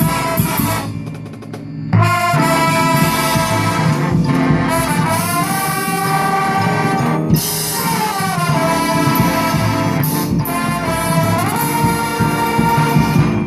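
Marching band brass section playing loud sustained chords, with several sliding pitch bends, after a brief quieter passage near the start.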